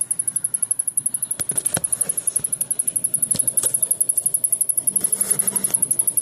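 Samsung rear-projection CRT television ticking rapidly and evenly, about ten high-pitched ticks a second, as it tries and fails to power up fully; the owner takes it for something shorting out. A few sharp knocks come in about one and a half and three and a half seconds in.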